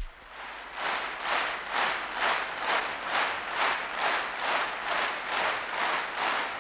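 Crowd clapping in unison to a steady beat, a little over two claps a second, swelling up within the first second after a sharp click at the very start.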